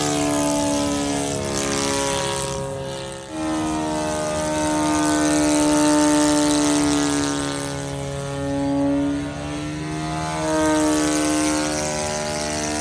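O.S. Gemini 160 twin-cylinder four-stroke engine running at speed on an RC model airplane in flight, its pitch slowly rising and falling as the plane flies past and away. The sound drops briefly about three seconds in.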